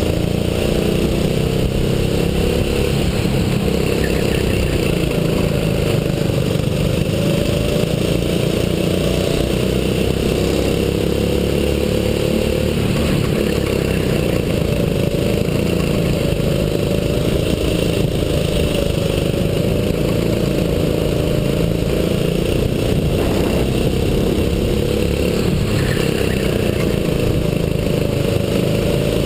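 A 6.5 hp rental kart's small single-cylinder engine running under race throttle, heard from on board, its pitch rising and falling over and over as the driver accelerates out of corners and lifts into them.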